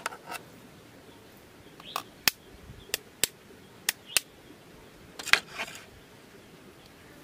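Eggs being cracked with a kitchen knife: sharp taps of the blade on the eggshells, mostly in pairs about a third of a second apart, with a short cluster of cracks a little after five seconds in.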